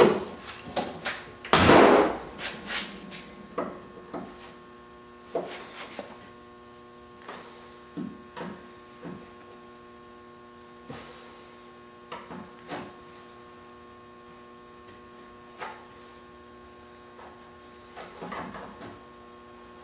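A steady electrical mains hum, with a loud rush and bang about two seconds in as a door is shut, followed by scattered light knocks and clicks.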